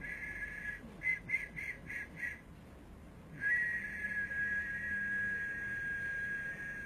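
A high, whistle-like tone: about five short pulses in quick succession, a pause, then one long steady tone, with a second, slightly higher tone sounding above it.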